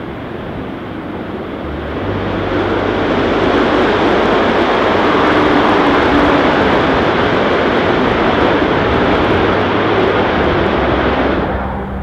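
Avro Vulcan XH558's four Rolls-Royce Olympus turbojets at high power as the bomber begins a fast taxi run down the runway. It is a loud jet roar that builds about two seconds in, holds steady, and falls away sharply near the end.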